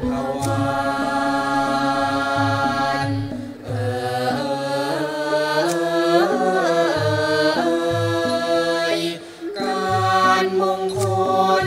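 Thai classical choral singing: men's and women's voices together in long, held notes that bend between pitches, over a Thai classical ensemble with a steady low drum beat. The singing breaks off briefly twice, about three and a half seconds and nine seconds in.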